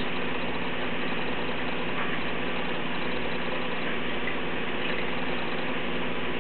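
Steady low hum and hiss of aquarium equipment running, with a few faint ticks.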